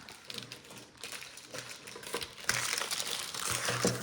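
Crinkly snack packages rustling and crackling as they are handled and stacked, with small knocks among them, louder from about two and a half seconds in.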